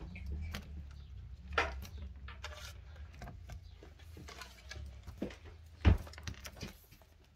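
Scattered light clicks and knocks over a low rumble, the loudest a single thump about six seconds in.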